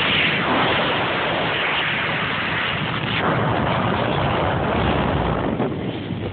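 Ski boat's 308 inboard V8 running steadily under way, mixed with rushing water and wind on the microphone.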